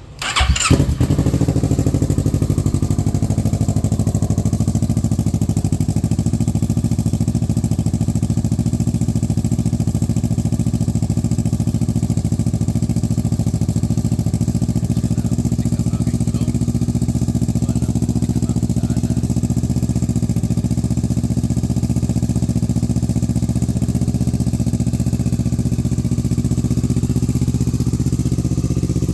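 2017 Kawasaki Z650's parallel-twin engine cold-started through a Yoshimura R11 titanium full exhaust: it fires up within the first second and settles into a steady idle.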